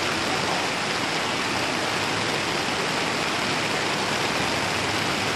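Steady rushing noise of rain and floodwater, an even hiss with no breaks.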